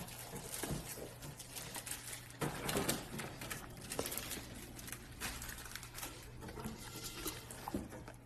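Golden retriever puppy chewing and mouthing a peeled banana: irregular soft, wet smacking clicks, with a faint steady low hum underneath.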